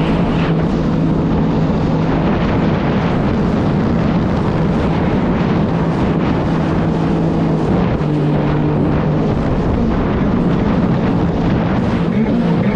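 Sea-Doo jet ski engine running steadily under way, with a steady rush of wind and water noise over it; the engine note shifts briefly about eight seconds in.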